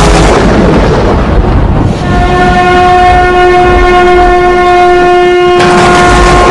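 A rushing noise, then from about two seconds in a conch shell (shankha) blown in one long steady note; a hiss joins near the end.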